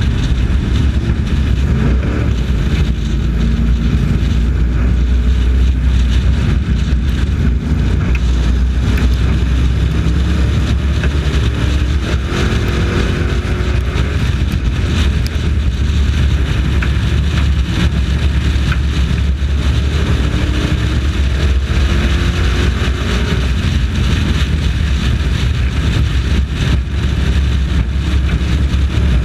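Race truck engine at racing speed, heard onboard, its revs rising and falling several times as it laps, with wind noise on the microphone.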